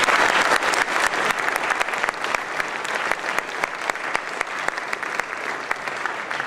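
Audience applauding, many hands clapping, loudest at the start and thinning out gradually toward the end.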